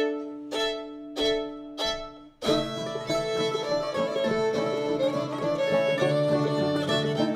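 An old-time string band of fiddle, banjo, mandolin and guitar starting a fiddle tune: a few separate notes, then about two and a half seconds in the whole band comes in together, with the fiddle leading.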